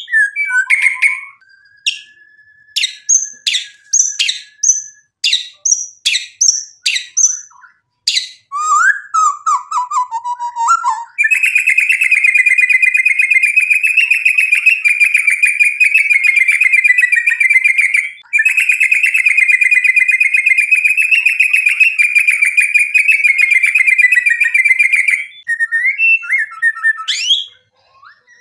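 Male white-rumped shama (murai batu) singing loudly: a run of sharp, sweeping whistled notes, then a falling trill about eight seconds in, then a long, rapid, rattling trill lasting about thirteen seconds with one short break midway, and a few more notes near the end.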